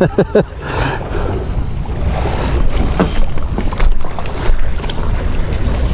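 Wind buffeting the microphone with a steady low rumble, over sea noise and a few short clicks.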